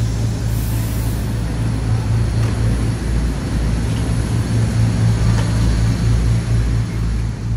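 Diesel engine of an airport apron shuttle bus idling, a steady low hum, with a short high hiss about half a second in.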